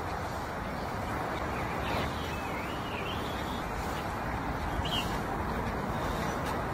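Steady outdoor background noise, with a few faint bird chirps about two seconds in and again near five seconds.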